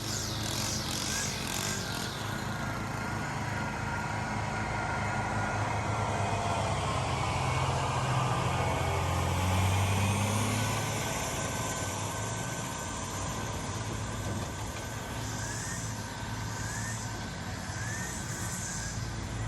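Lawn mower's small petrol engine running steadily, getting louder and briefly higher in pitch about halfway through.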